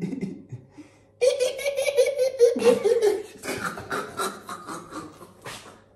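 Young men bursting into loud, choppy laughter about a second in, with sputtering as a mouthful of cinnamon powder is blown out during the cinnamon challenge.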